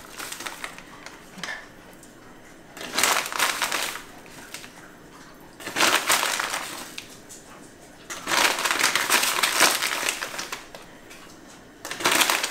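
Tablespoons of yellow sugar scooped and tipped into a pan of gooseberries, a gritty crunching rustle in four separate bursts of a second or two.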